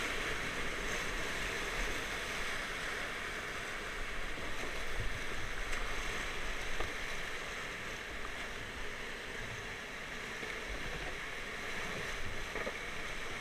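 Whitewater of a river rapid rushing steadily over rocks.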